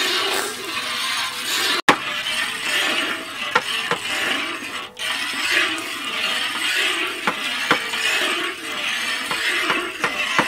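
A steel ladle stirring milk in a large iron wok, clinking and scraping against the metal every second or two over a steady hiss.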